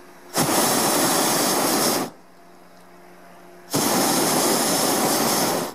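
Hot-air balloon's propane burner firing twice, each blast a loud, steady hiss of about two seconds, with a pause of a little under two seconds between them.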